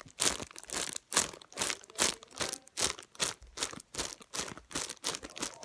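Plastic bags holding paper squishies crinkling as they are handled, in quick crackly bursts about two or three times a second.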